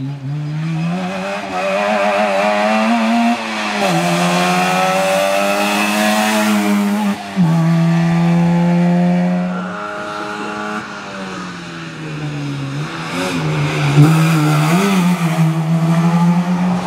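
Trabant rally car's two-cylinder two-stroke engine revving hard under acceleration. The pitch climbs and drops sharply at upshifts about four and seven seconds in, eases back around the middle, then wavers and climbs again near the end.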